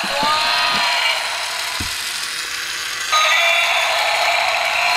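Battery-powered walking toy T. rex running after its batteries are fitted, its small motor and plastic gears whirring and clicking, louder from about three seconds in, with a few handling knocks.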